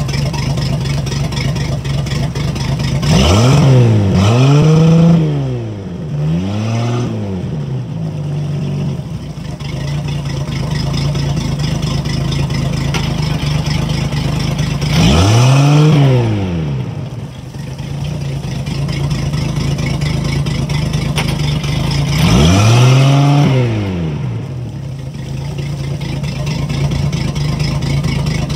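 Sterndrive engine of a 1994 Four Winns Freedom 170 idling on the trailer, cooled by a garden hose on the outdrive, with water splashing from the drive. It is revved up and back down briefly several times: twice in quick succession a few seconds in, then about midway, then again near the end.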